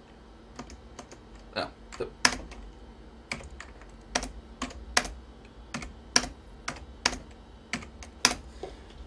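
Keys on an Apple Extended Keyboard II being struck one at a time as single digits and the Return key are typed into spreadsheet cells: separate sharp key clicks, about two a second and unevenly spaced.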